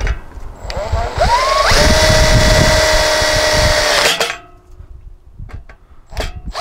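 Cordless impact driver with a Phillips bit driving a self-drilling, self-tapping screw into the latch mount. It spins up with a rising whine, runs at a steady pitch for about two and a half seconds, then stops suddenly. A few short clicks follow near the end.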